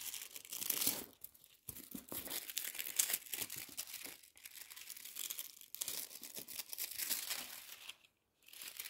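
Sheet of holographic transfer foil crinkling and crackling in fits and starts as it is handled and pressed onto the sticky artwork, with a short pause near the end.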